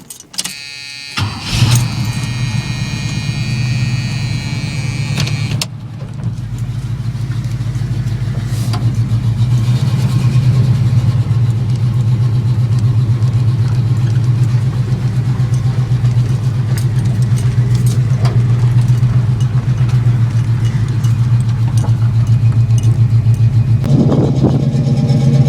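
Chevrolet small-block V8 in a Camaro cranked and started, catching about a second and a half in with a high whine over the first few seconds, then settling into a steady idle.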